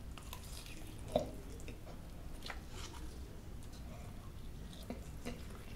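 Faint chewing and mouth sounds of a man eating a bite of spiced fried chicken, with a few soft clicks and one slightly louder one about a second in.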